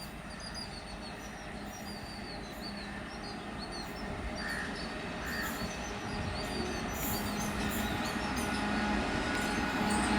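A WAG-7 electric locomotive hauling a loaded 59-wagon freight train approaches, its rumble growing steadily louder under a low, steady hum. Short high-pitched chirps sound over it.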